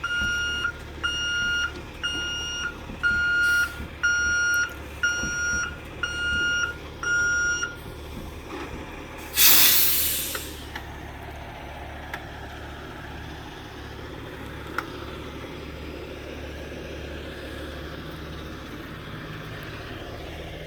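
Tow truck's reversing alarm beeping about once a second, eight beeps, then stopping as the truck halts. A loud burst of air-brake hiss follows, and the diesel engine keeps idling underneath.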